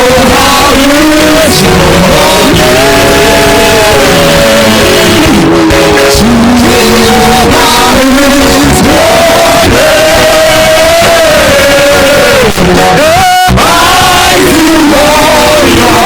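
Loud worship music in a church service: voices singing held, sliding notes over instrumental backing.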